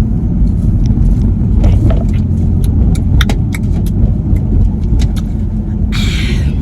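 Road and engine rumble inside a moving car's cabin, with scattered light clicks in the middle and a short hiss near the end.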